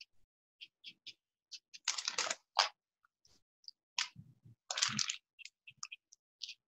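Felt marker tip tapping and scratching on paper in quick short strokes, drawing a dashed stitch pattern. About two seconds in and again around four to five seconds there are louder rustles, clicks and knocks as one marker is handled and swapped for another.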